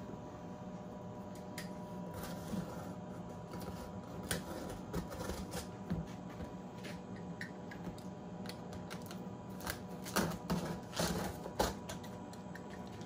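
Hands handling a cardboard shipping box: scattered light scrapes, rustles and taps on the cardboard, with a cluster of louder knocks and rustles about ten seconds in.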